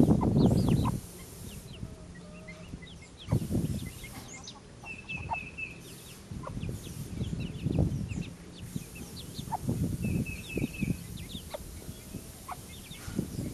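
Young chicks peeping, many short high calls that slide down in pitch, while the mother hen gives low clucks every few seconds. A short, rapid, high trill comes back a few times.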